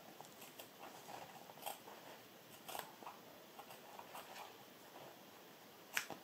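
Scissors snipping through the thread loops of machine-sewn fringing: a string of faint, irregular snips, with one sharper click near the end.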